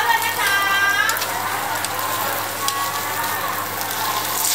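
Seafood omelette frying in hot oil: a steady sizzle with small crackles throughout, and a short pitched tone, like a voice, about half a second in.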